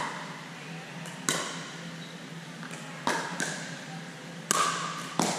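A pickleball rally: about six sharp, hollow pops of paddles striking the plastic ball and the ball bouncing on the court, spaced unevenly about a second apart. Each pop echoes briefly in the hard-walled gym.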